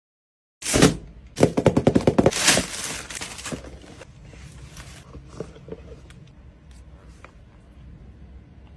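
Shoe packaging handled during an unboxing: a white cardboard shoebox and its wrapping crinkle and rustle in rapid loud crackles, first briefly under a second in, then in a longer run about a second and a half in. The sound then thins to scattered light taps and rustles as the box is opened and a high heel is lifted out.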